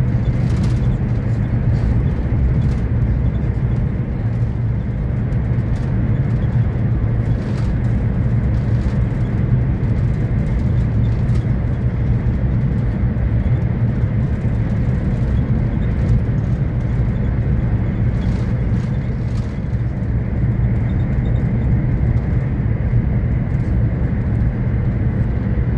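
Cabin noise of a Renfe Alvia passenger train running at speed: a steady low rumble with a few faint clicks.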